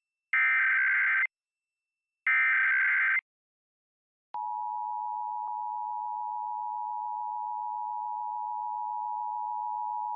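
Emergency Alert System test signal: the last two of three digital SAME header data bursts, each about a second long with a second's gap between them. About four seconds in, the steady two-tone EAS attention signal (853 and 960 Hz) starts with a click.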